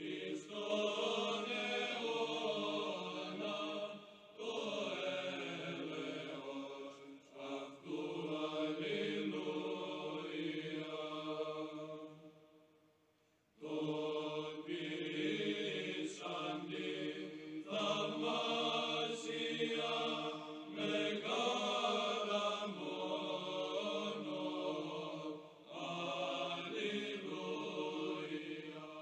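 Slow vocal chant: voices singing long held notes in phrases, with a brief break a little before the middle.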